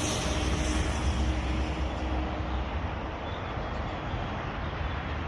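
A steady low engine rumble from something passing at a distance, its higher notes fading over the first couple of seconds.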